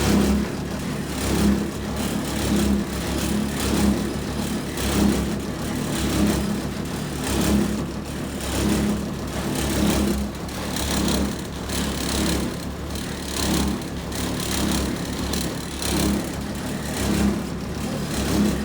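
Clothes dryer running with a steady low hum and a rhythmic noise that swells and fades a little more often than once a second.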